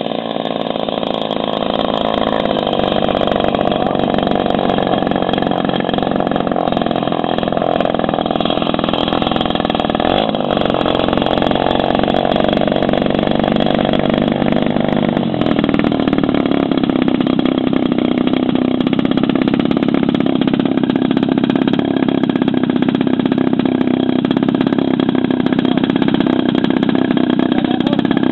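Engine of a large radio-controlled Storch model aeroplane running steadily. It grows louder over the first couple of seconds as the model comes in, then drops to a lower, steady pitch about fifteen seconds in, when the model is on the ground.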